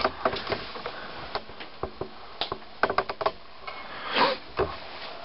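Scattered light clicks and knocks of handling at a workbench, with a quick run of taps about three seconds in.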